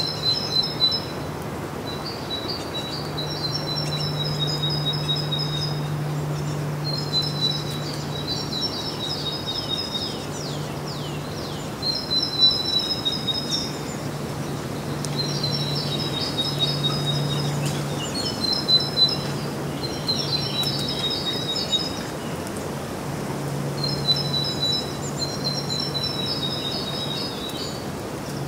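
A songbird singing short, high, trilling phrases that recur every few seconds, over a steady low hum and hiss of outdoor ambience.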